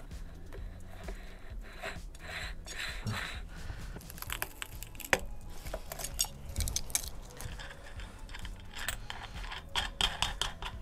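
Steel screw-on multi-speed freewheel being threaded onto a direct-drive hub motor and tightened with hand tools: scattered metallic clicks and rattles from the sprocket cluster and tools, with a few sharp knocks, the loudest about halfway through.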